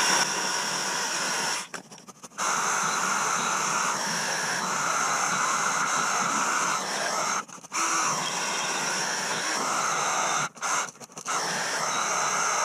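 Black & Decker 20-volt 10-inch battery chainsaw cutting into a thick log, about 12 inches, its chain and electric motor whirring steadily under load. It cuts out briefly three times, about two seconds in, near the middle and about eleven seconds in, then runs again.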